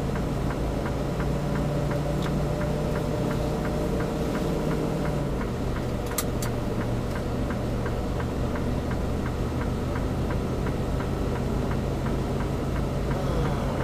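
Semi-truck diesel engine running steadily heard from inside the cab as the truck rolls at walking pace; its note drops a little about five seconds in. A light, even ticking about three times a second runs throughout, and a couple of sharp clicks come about six seconds in as the seatbelt is latched.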